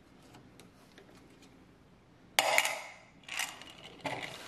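Three short metallic clatters of small metal pieces against a tin can: the first, a little over two seconds in, is the loudest and rings briefly, and two smaller ones follow. Before them there are only faint light scratches of a small metal pick working at a screw head on the cash register's cast-metal trim.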